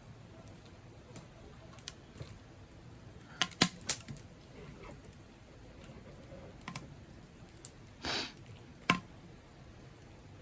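Scattered light clicks and knocks, with a cluster of sharp ones about three and a half seconds in, then a short rustle and a single sharp click near the end.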